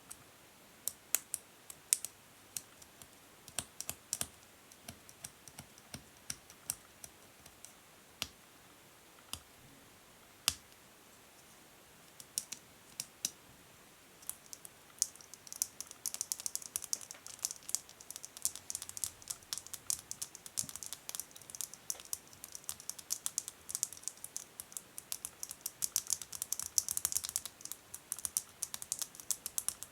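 Natural fingernails tapping on hard plastic: separate taps a second or so apart for the first half, then from about halfway a quick, dense run of tapping and scratching.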